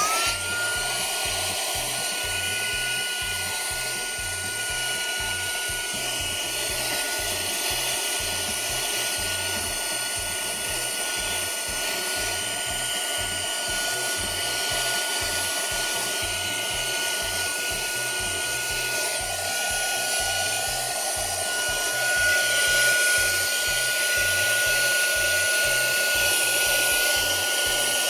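Cleanfly H1 cordless handheld cyclonic vacuum cleaner running at full speed, a high, even motor whine over the rush of the suction airflow. It gets a little louder about two-thirds of the way through.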